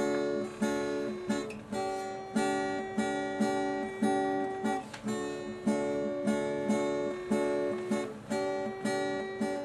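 Acoustic guitar strummed in a steady rhythm, about two strums a second, repeating a short chord pattern.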